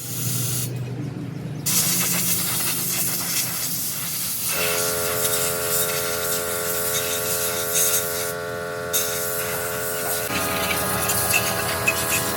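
Steady hissing, like a spray or jet of air, joined about four seconds in by a steady mechanical whine that steps slightly in pitch near the end.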